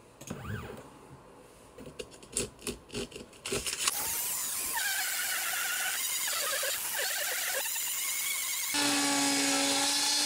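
Dremel rotary tool on a DIY CNC machine milling a gear out of 3 mm acrylic with a single-flute bit: a steady high whine with cutting noise. It starts abruptly about four seconds in after a few light clicks and knocks, and grows louder and steadier near the end.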